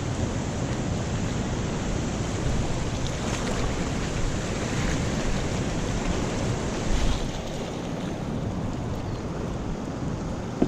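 High, fast river current rushing steadily, with wind buffeting the microphone.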